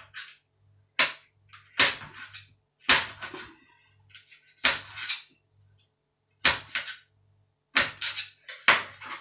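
Eating noises close to the microphone: a string of sharp mouth smacks and slurps at irregular intervals, roughly one a second, over a faint low hum.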